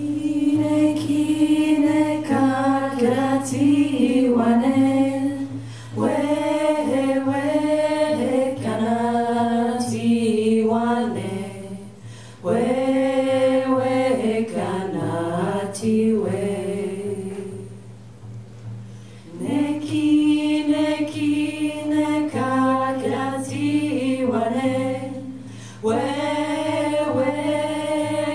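A women's vocal group sings a Wendat lullaby unaccompanied in slow, long-held phrases, with a short pause for breath about two-thirds of the way through.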